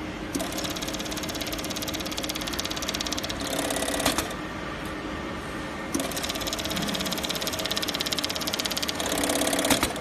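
GK35-6A automatic bag-closing sewing head running at speed, stitching a rapid chain-stitch seam across a woven bag twice. Each run ends with a short hiss and a sharp snap from the pneumatic guillotine thread-chain cutter, with a steady machine hum between the runs.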